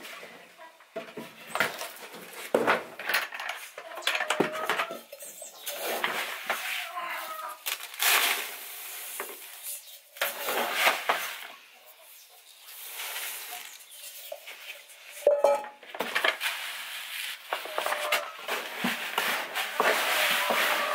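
Mixed grain poured into a clear plastic storage-box chicken feeder, seed rattling onto the plastic in several pours with short pauses between.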